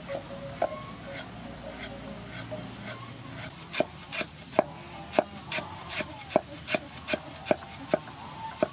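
Cleaver slicing lemongrass stalks on a wooden chopping board. Light cuts at first, then sharp chops about three a second from about three and a half seconds in.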